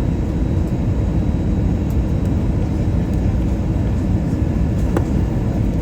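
Steady low cabin noise of an Airbus A320 airliner in flight, engines and airflow heard from inside the cabin, with a faint click about five seconds in.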